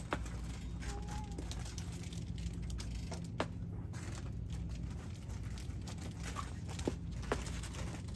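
Shop background: a steady low hum with a few sharp clicks and some light rustling, typical of packaged merchandise being handled.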